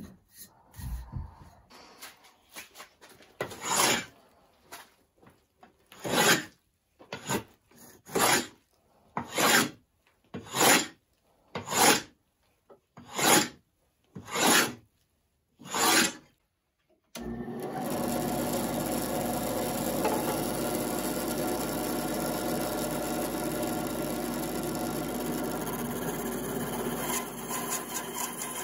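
About a dozen strokes of a hand plane shaving the wooden banjo neck, about one a second. About two thirds of the way in, this gives way abruptly to a band saw running steadily, cutting a strip of wood.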